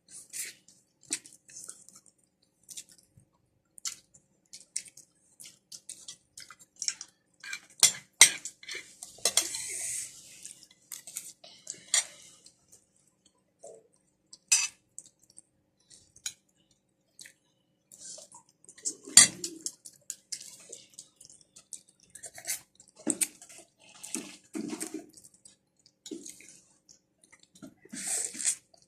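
Sounds of eating at a table: scattered clicks and clinks of cutlery against plates, with some chewing. The loudest knocks come about 8 and 19 seconds in.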